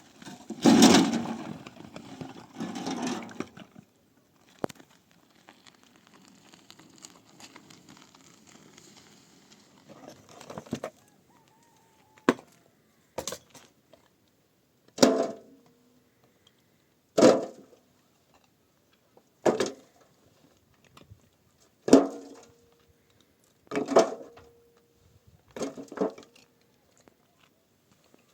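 Rustling and scraping for the first few seconds, then a string of sharp knocks, about one every two seconds, some leaving a brief ringing note.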